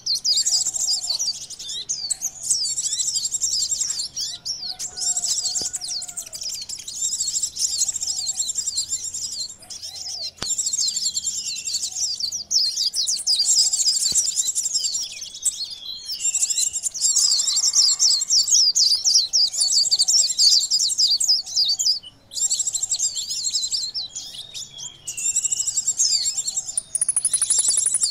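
Van Hasselt's sunbirds (kolibri ninja) twittering in a fast, high-pitched, busy chatter, in runs of a few seconds with short breaks: a lure call recording used to draw the birds in.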